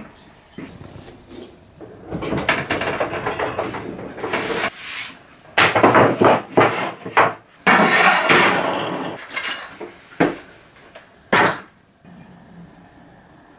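Pallet-wood slats clattering and knocking against one another and the wooden workbench top as they are set down and shuffled, with one last sharp knock near the end.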